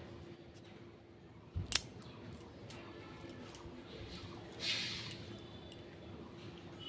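A short breathy sniff through the nose about two-thirds of the way in, after a low thump and a sharp click about a second and a half in, over a faint steady hum.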